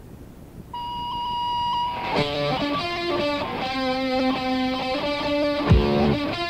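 Faint tape hiss, then a single held high note about a second in, and an electric guitar starts playing chords about two seconds in: the opening of a punk rock song on a demo cassette.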